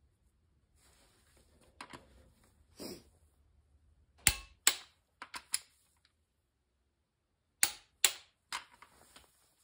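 Click-type torque wrench on connecting-rod bolts clicking as each bolt reaches the set 50 ft-lbs: sharp metallic clicks in two pairs, about four and eight seconds in, with fainter clicks from the wrench and socket between them.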